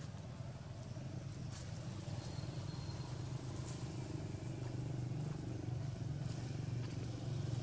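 Low, steady motor-vehicle engine rumble, slowly growing louder, with a few faint clicks over it.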